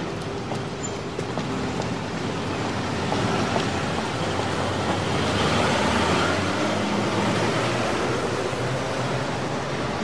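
Heavy city traffic: many vehicle engines and tyres on the road blend into a steady, dense rumble and hiss that swells a little in the middle.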